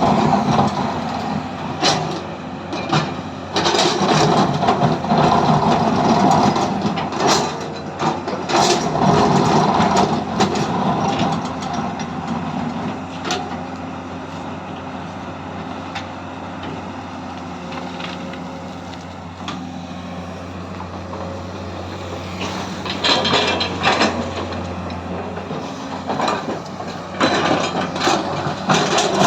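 Hydraulic excavator's diesel engine running, louder and busier in spells when the machine is working and settling to a steadier, lower hum in the middle stretch, with scattered sharp knocks. The drop in revs when the levers are released is the engine's automatic deceleration.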